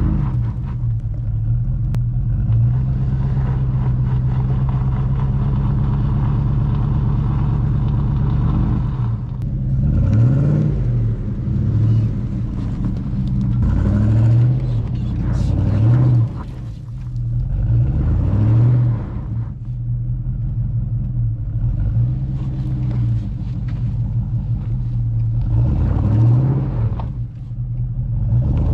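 Range Rover P38's supercharged V8 engine running under load on an off-road trail. It holds a steady note for the first several seconds, then revs rise and fall repeatedly through the rest.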